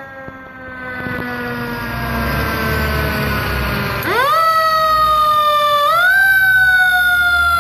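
Fire engine siren: a slowly falling tone at first, then a sharp wind-up about four seconds in that eases down and is pushed up again about two seconds later, over the low rumble of the truck's engine.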